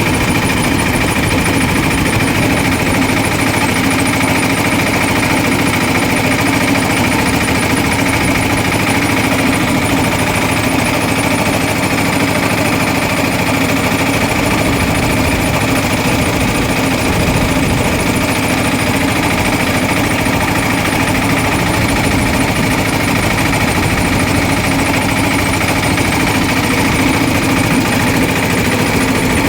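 Motor-driven sugarcane juice crusher running with a steady, loud mechanical hum.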